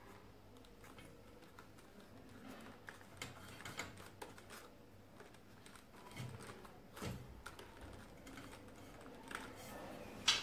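Small scattered clicks and rustles of hands working at a plastic electrical junction box, its corrugated conduit and black electrical tape, with a sharper click near the end.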